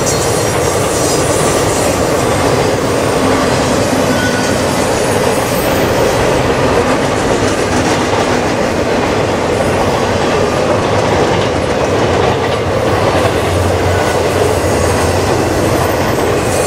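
Double-stack intermodal container cars of a freight train rolling past at close range: a loud, steady rush of steel wheels on rail.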